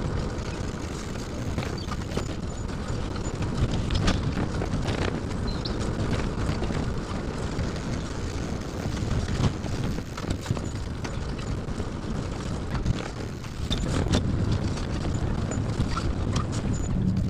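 Steady rolling rumble of a wheeled fabric trailer moving over pavement, with wind on the microphone and scattered short knocks and rattles from bumps.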